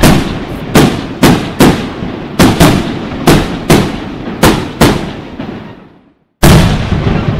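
Fireworks display: a rapid string of sharp bangs from shells bursting overhead, about two to three a second, each with an echoing tail. The bangs die away near six seconds in, and after a moment of silence another loud bang comes near the end.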